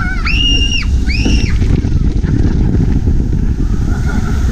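Log flume riders screaming twice in quick succession, high-pitched and held, about a second in, over a steady low rumble of the ride and wind on the microphone.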